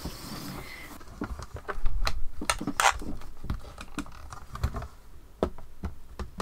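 Hands handling paper and plastic craft tools at a stamping platform: a run of irregular clicks, taps and knocks, the loudest about two and three seconds in.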